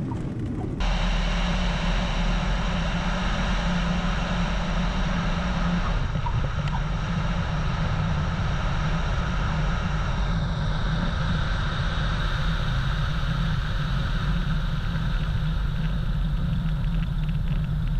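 Cessna 177RG Cardinal's four-cylinder Lycoming engine and propeller running steadily at low power, heard from inside the cabin, as the plane rolls out or taxis after landing. The sound steps up abruptly about a second in.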